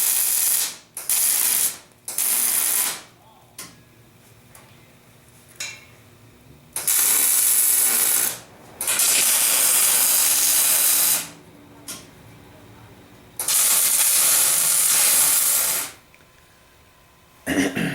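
Electric arc welder laying short tack welds: about six bursts of sizzling arc noise, each one to two and a half seconds long and starting and stopping sharply, with pauses between. A short knock near the end.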